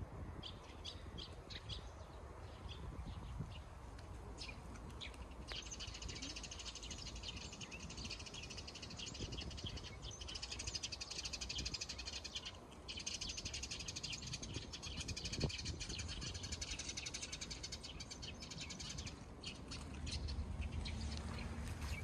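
A cat chewing and nibbling at its own claws: small scattered clicks at first, then a dense run of rapid fine clicking for over ten seconds, with a brief pause in the middle.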